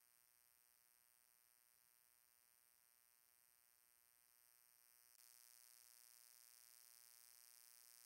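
Near silence: a faint steady hiss with a low hum, the hiss growing slightly louder about five seconds in.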